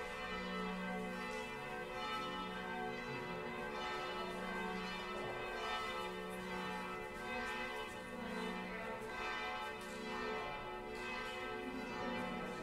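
Several church bells ringing together in a peal, the tones of the bells overlapping and hanging on, with the lowest bell's strokes coming roughly every second and a half.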